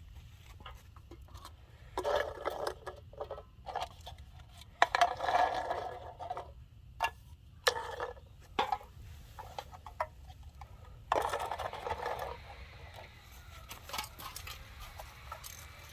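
Irregular clicks, taps and knocks, with a few short rattling clatters, from hands working a BB gun and its light metal and plastic parts.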